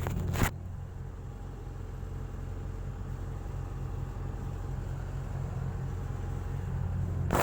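Hitachi excavator's diesel engine running steadily at a low, even hum. A loud rushing noise in the first half second cuts off sharply.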